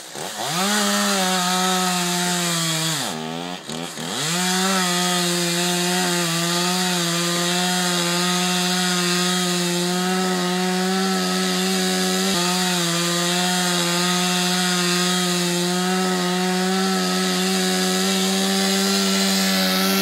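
Chainsaw engine revved up about a second in, dropping briefly around three seconds, then held at a steady high pitch and falling off at the very end.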